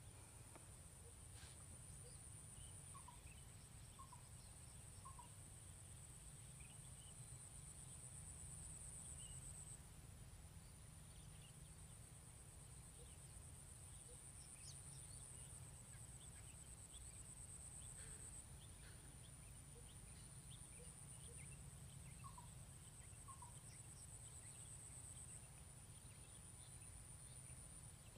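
Faint waterside ambience: a steady high-pitched insect trill that breaks off and starts again every few seconds, over a low rumble, with a few short chirps early on and again later.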